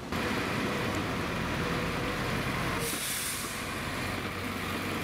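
City bus running as it drives past, with a short hiss of air from its brakes about three seconds in.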